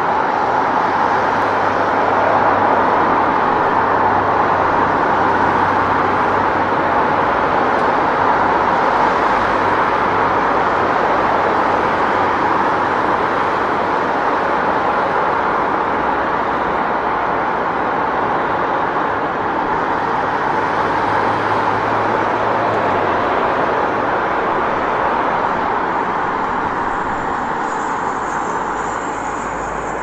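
City street traffic noise: a steady, dense wash of vehicles on the road, with a low engine hum underneath that fades out about three-quarters of the way through.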